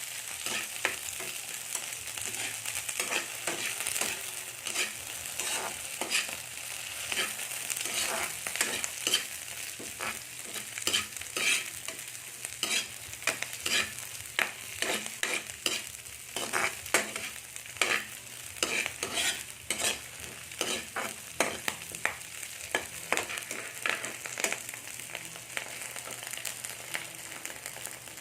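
Squid frying in a pan with a steady sizzle, while a utensil repeatedly stirs and scrapes against the pan in short strokes.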